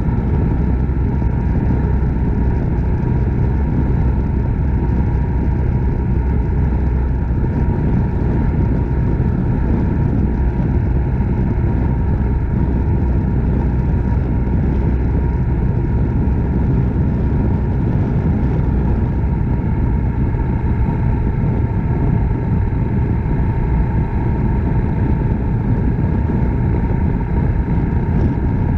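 Suzuki Grass Tracker Big Boy's 250 cc single-cylinder engine running at a steady cruise under a constant rush of wind and road noise.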